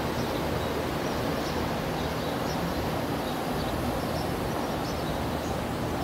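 Steady outdoor background noise, a constant even hum and hiss, with faint scattered high chirps of small birds.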